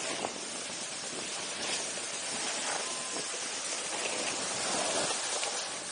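Steady rushing hiss of wind over the camera's microphone and skis sliding on packed snow while skiing downhill.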